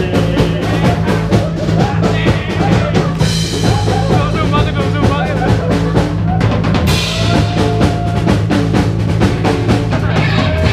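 Live band playing: a drum kit beating steadily over held low bass notes and guitar, with cymbal crashes about three and seven seconds in.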